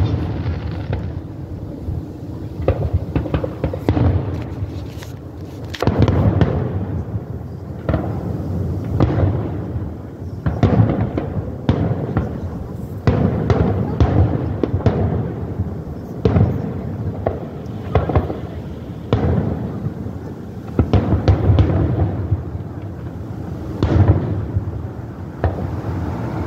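Aerial fireworks display: shells bursting overhead in a long series of loud bangs, sometimes several close together, each trailing off in a low rolling rumble.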